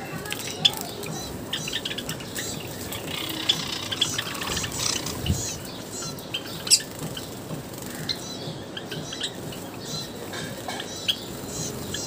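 Java sparrows giving short, high chirps and clicking calls scattered throughout, with sharp clicks here and there. Water splashes in the first half as one bathes in a shallow bowl.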